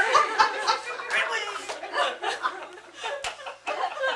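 A small audience laughing and chuckling while a voice keeps talking, with a brief sharp click about three seconds in.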